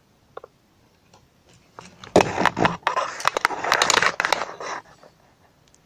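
Rustling, scraping and crackling handling noise, with many sharp clicks, as the camera is moved and rubbed against a shirt. It starts about two seconds in and dies away near the end.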